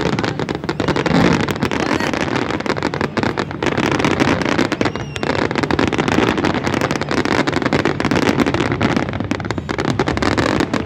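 Fireworks going off in a continuous barrage of rapid bangs and crackling.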